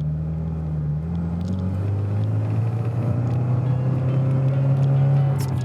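Modified 2021 Subaru WRX's turbocharged flat-four engine, loud, pitch climbing steadily as the car pulls away and accelerates.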